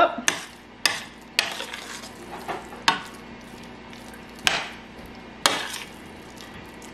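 Metal spoon stirring thick potato salad in a stainless steel pot, with several sharp clinks of the spoon against the pot at irregular intervals.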